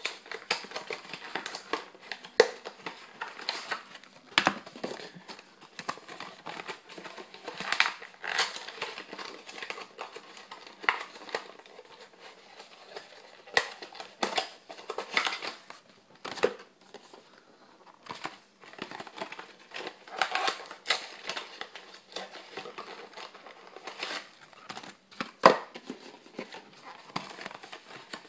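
Foil booster-pack wrappers crinkling and trading cards rustling as packs are opened and handled: an irregular string of crackles and scrapes, with a few sharper snaps.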